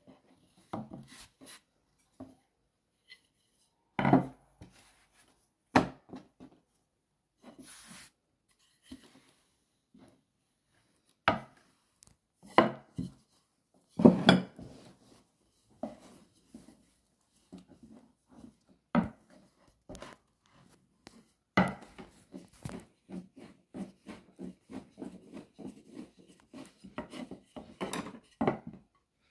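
Wooden rolling pin working dough on a floured wooden board: scattered sharp wooden knocks and thumps, then a quick run of short back-and-forth rolling strokes over the last several seconds.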